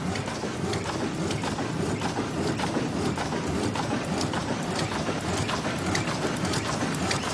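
Automatic bubble mailer bag making machine running steadily, with a dense train of mechanical clicks and ticks over a continuous rumbling hum.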